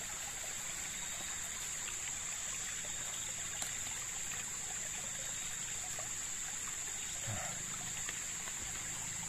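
Steady outdoor forest background with a high, even hiss, and a few faint clinks of a metal spoon scooping food out of a metal cooking pot.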